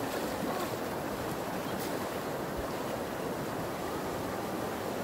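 Steady rush of flowing stream water, with wind buffeting the microphone.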